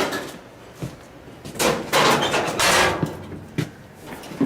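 Knocks and a long scraping, sliding clatter as a laundry appliance's door and panels are handled and banged.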